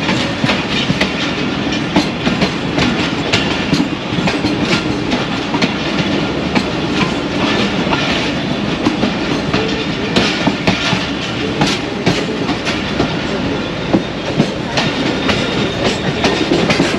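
Passenger train running through a station yard, its coach wheels clattering over rail joints and points in a steady run of irregular clicks and knocks over the rolling rumble.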